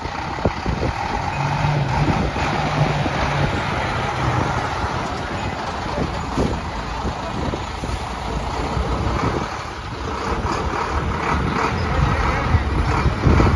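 Engine of a converted school bus (a chicken bus) running as the bus moves slowly past close by, with a louder low rumble near the end.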